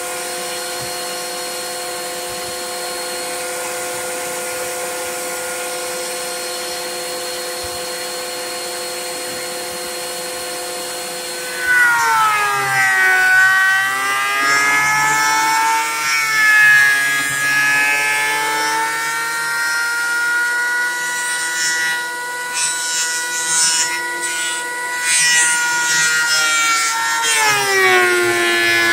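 Ridgid benchtop thickness planer running free with a steady whine, then a board feeds in about twelve seconds in. The motor's pitch drops and wavers under load as the cutterhead planes the old lumber, louder and with a hiss of cutting added. Near the end the pitch dips once more.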